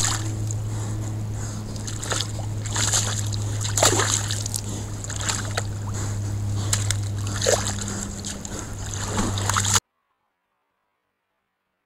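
A white-tailed buck moving and splashing at the water's edge right by a trail camera, with irregular wet splashes and sharp clicks over the camera's own steady low hum. The sound cuts off suddenly near the end.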